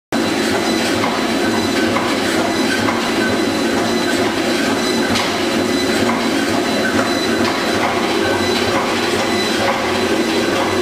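Caster wheel with a red tread running on a turning metal test drum: a steady, loud rumbling rattle with many small scattered clicks.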